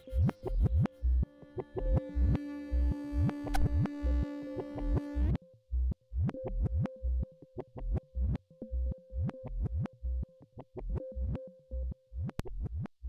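Background electronic music with a synthesizer and a steady beat. About five seconds in the fuller chords drop out, leaving the beat and one thin held note.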